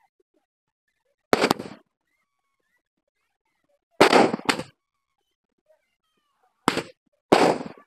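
Fireworks going off: five sharp bangs, each with a short fading tail. One comes about a second in, a close pair about four seconds in, and another pair near the end.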